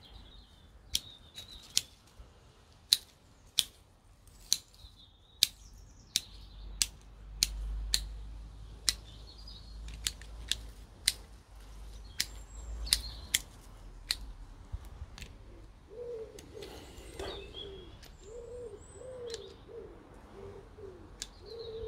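Hand pruning shears snipping plant stems, a sharp cut about once a second, repeated some twenty times. Birds chirp faintly, and a bird coos in the last few seconds.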